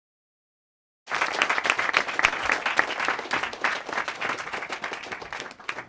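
Audience applauding: many hands clapping at once, starting abruptly about a second in and slowly dying away.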